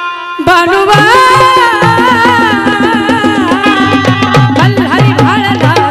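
Instrumental passage of a Marathi folk song: a wavering melody over fast dholki drum strokes. A held note drops away and the band comes back in with a sudden full entry about half a second in.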